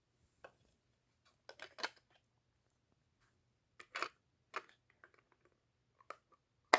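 Scattered clicks, knocks and rattles of the Umarex Steel Force CO2 BB rifle's parts being handled as the CO2 cartridges are tightened in with the key, with one sharp, louder click near the end.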